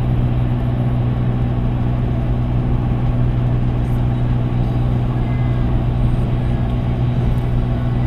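Steady drone of a car cruising at freeway speed, heard from inside the cabin: engine and tyre noise with a strong low hum.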